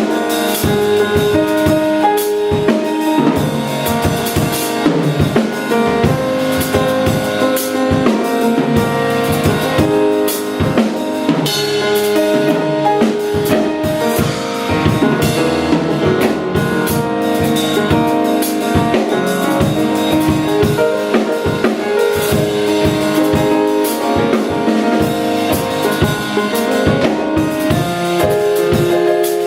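Live instrumental band music: a drum kit with bass drum and snare keeps a steady beat under held melody and chord notes on pitched instruments.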